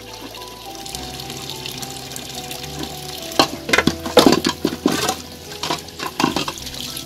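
Water pouring from a pipe onto stones while a metal pot and dishes are washed by hand, with a run of clanks and scrapes of metal cookware from about three seconds in until near the end.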